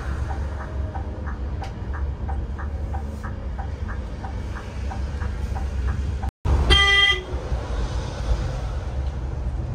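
Low running rumble of a Scania multi-axle sleeper bus on the road, with a steady ticking about three times a second. After a brief dropout about six seconds in, a vehicle horn gives one short toot.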